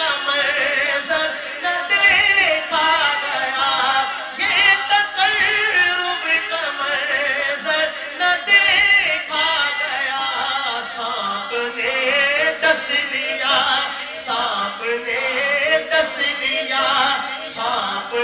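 Unaccompanied male voices singing an Urdu manqabat: a long, wavering, ornamented melodic line with other voices sounding beneath it.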